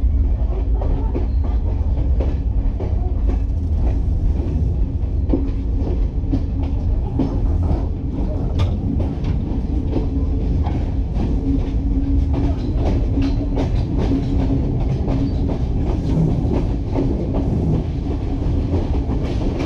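Train running along the line, heard from aboard a carriage: a steady low rumble and hum, with the wheels clicking over rail joints, the clicks growing distinct from about six seconds in.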